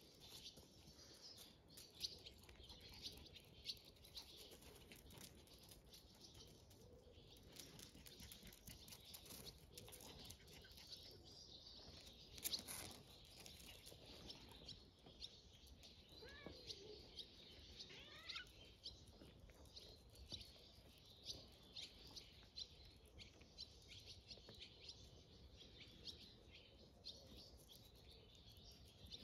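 Near silence with faint bird chirping in the background and scattered soft ticks. One louder click comes about twelve seconds in.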